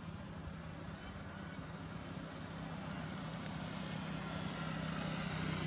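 A motor vehicle engine running with a steady low hum that grows louder toward the end. A few faint short high chirps come about a second in.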